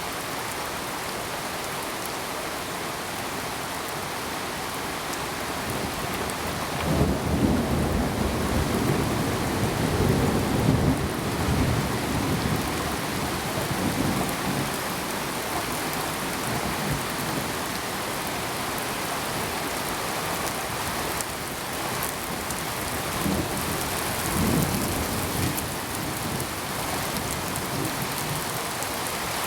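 Steady rain falling, with thunder rumbling: a long roll about seven seconds in that lasts several seconds, and a shorter one later.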